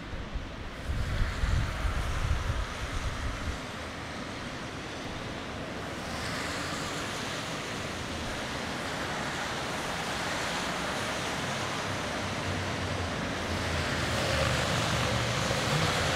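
Traffic on a wet street: a steady hiss of car tyres on wet asphalt, swelling louder near the end as cars pass close by. Gusts of wind rumble on the microphone for the first few seconds.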